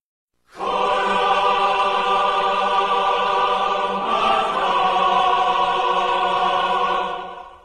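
A choir singing one long held "aah" chord, moving to a new chord about four seconds in and fading out near the end: the heavenly choir sound effect used for something sacred.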